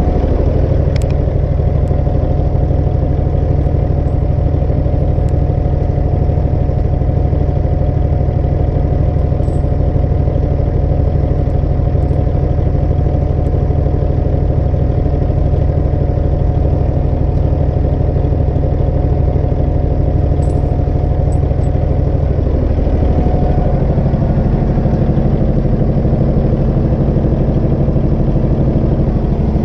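An engine running steadily at a constant speed. Its note shifts slightly about three-quarters of the way through.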